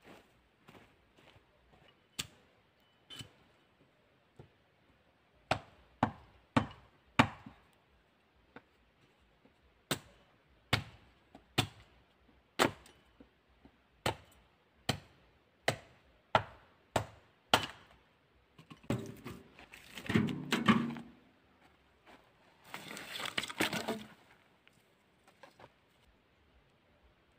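Wood being chopped: about sixteen sharp knocks in uneven runs, then two longer, rougher stretches of noise of about two seconds each near the end.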